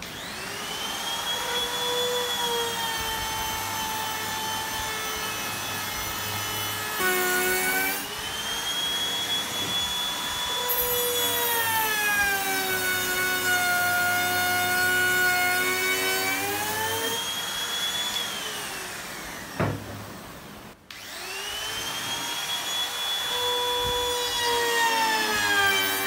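Compact trim router cutting an edge profile in a wooden box. It spins up at the start, and its whine dips in pitch and comes back up several times as it cuts along the edge. About three-quarters of the way through it is switched off and winds down, then starts again a second later.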